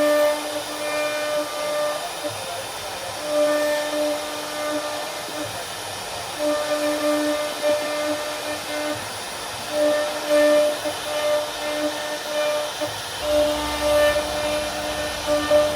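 CNC router spindle carving wood: a steady whine that swells and fades every second or two as the bit loads and unloads in the cut, over a constant hiss of cutting.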